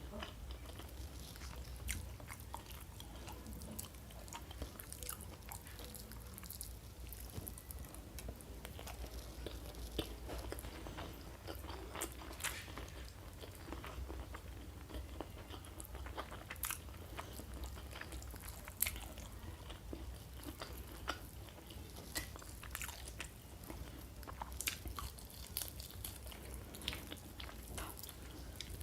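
Close-miked eating: a person chewing and biting food, with many short sharp crunches scattered throughout.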